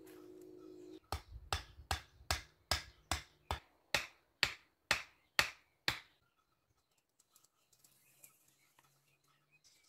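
A quick, even series of about a dozen sharp knocks, roughly two and a half a second, that stops about six seconds in. A steady hum cuts off just before the knocks begin.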